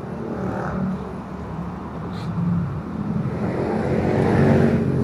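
A motor vehicle engine running steadily, getting louder over the last two seconds.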